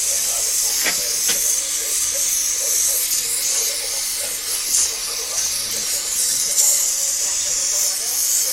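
Gas welding torch flame hissing steadily as it heats a steel rose to red heat, with two small clicks about a second in.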